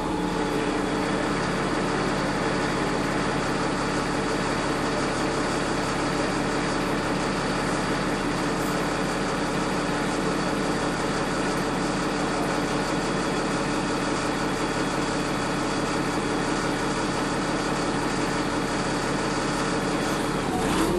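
Transit bus diesel engine idling steadily, heard from inside the passenger cabin, the bus standing still between slowing down and pulling off.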